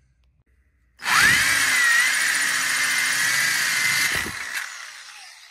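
Black and Decker electric drill spinning up with a rising whine about a second in, then running steadily as its bit grinds through the bottom of a glazed ceramic flower pot, fading away after about three seconds.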